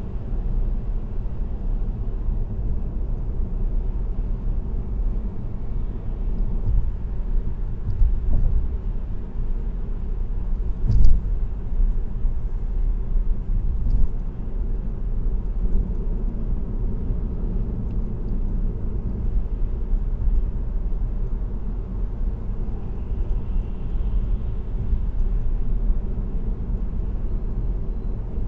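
Steady low rumble of tyres and road noise from a car cruising on an expressway, heard through the windshield-mounted dashcam inside the car. A few short thumps break through, the loudest about eleven seconds in.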